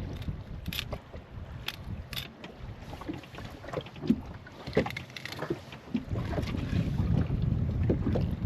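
Fillet knife scraping and cutting along a hogfish's scales and spine bones in short strokes, over wind buffeting the microphone, which grows stronger about six seconds in.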